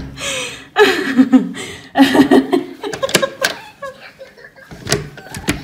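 Laughter in short repeated bursts, with a few sharp knocks in the second half.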